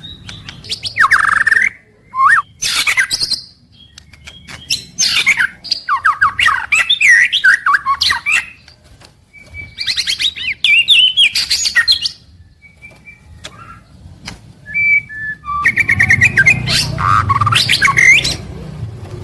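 White-rumped shama (murai batu) singing loud, varied phrases of gliding whistles and quick notes, in bursts of one to three seconds with short pauses between them.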